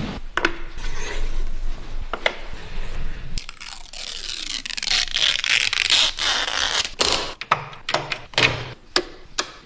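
Irregular knocks, clicks and scraping from hard objects being handled, with a few seconds of rasping scrape partway through.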